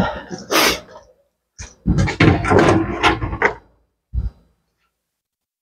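Rummaging among workshop tools: a stretch of knocks and clatter of hard objects, then one short knock about four seconds in.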